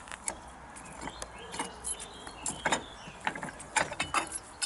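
AL-KO caravan hitch lock being handled on the hitch head: a string of irregular metallic clicks and clunks.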